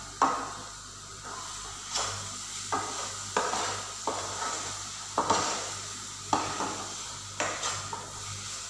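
Metal spoon stirring and scraping carrot halwa as it fries in ghee in a frying pan, knocking against the pan about once a second over a low steady sizzle.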